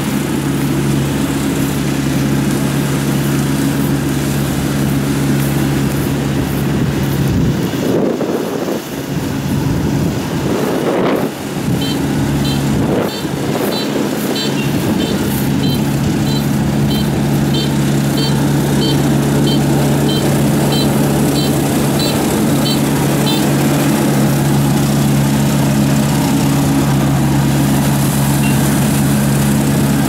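Rice combine harvester's diesel engine running steadily while harvesting in a wet paddy. A high beep repeats about twice a second for some ten seconds in the middle.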